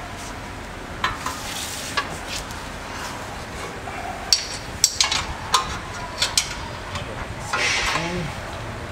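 Metal hardware being handled: light clicks and clinks of a bolt, washers and a bent weld nut being fished and pushed up into holes in a truck's steel frame and bracket, with a cluster of sharp clinks in the middle and short scraping sounds near the start and near the end.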